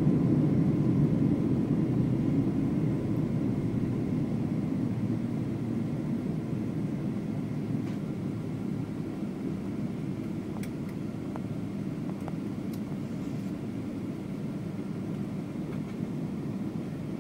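Boeing 777-200 cabin noise during the landing rollout: the low rumble of the engines and wheels on the runway fades steadily as the airliner slows. A few faint clicks come in the second half.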